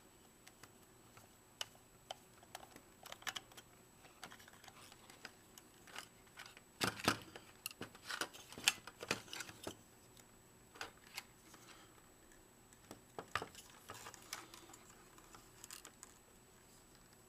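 Scattered small clicks and knocks of a Vivitar 2800 flash's plastic housing and parts being taken apart by hand and screwdriver, busiest about seven to nine seconds in.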